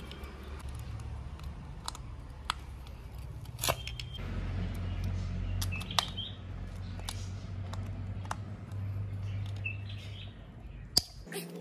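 Scattered sharp metallic clicks and taps of a hand tool working at screws inside a brush cutter's engine casing, the sharpest near the end, over a low steady hum. A few short bird chirps are heard.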